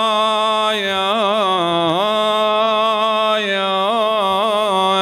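A man chanting a Yazidi religious hymn in long held notes, with quick wavering turns about a second in and again near four seconds in, over a steady drone.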